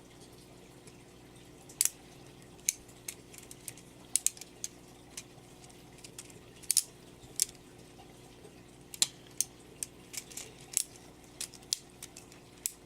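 LEGO butterfly knife clicking and clacking as it is flipped open and shut by hand. The plastic handles knock together in irregular sharp clicks, starting about two seconds in.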